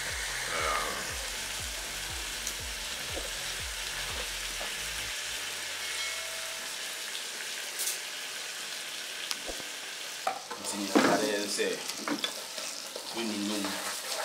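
Washed rice sizzling and frying in hot oil in a pot, a steady hiss. From about ten seconds in, a wooden spoon stirs and scrapes the rice against the pot.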